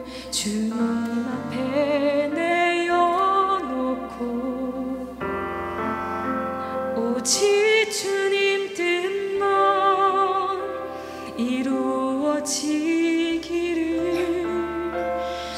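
A woman singing a Korean worship song into a microphone, her held notes wavering with vibrato, over an instrumental accompaniment of sustained chords.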